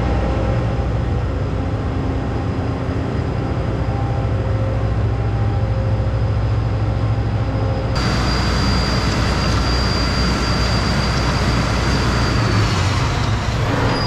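A John Deere combine's diesel engine running with a steady low rumble. A thin high whine becomes much louder about eight seconds in and dips slightly in pitch near the end.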